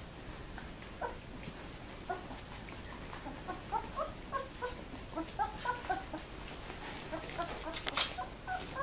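Very young Labrador retriever puppies, about two weeks old, squeaking and whimpering in many short, high chirps that come thicker from about three seconds in. About eight seconds in there is a brief louder burst of scratchy clicks.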